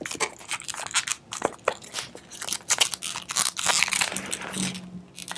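Latex modelling balloon being twisted and wrapped into pinch twists by hand: irregular rubbery crackles and rubbing of latex on latex.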